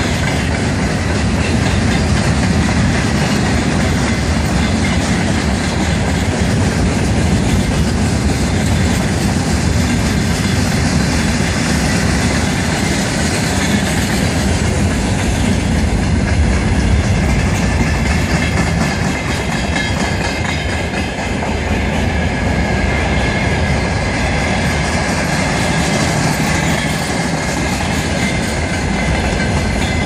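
Long freight train of open wagons and hopper cars rolling steadily past on the rails. A thin high ringing tone joins in about halfway through.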